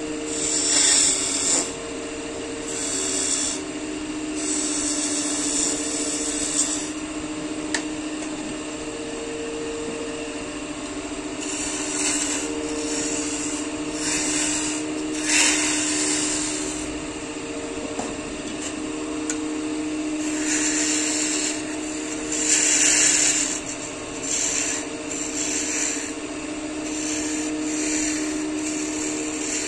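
Wood lathe running with a steady motor hum while a tool works the spinning wood in repeated strokes of a second or two each.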